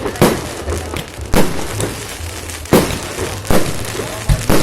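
Fireworks salute going off: about six sharp bangs, roughly one a second.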